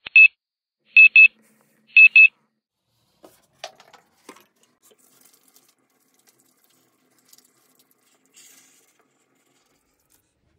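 Wake-up alarm beeping: high double beeps once a second, three times, then stopping, followed by a few faint clicks and rustles.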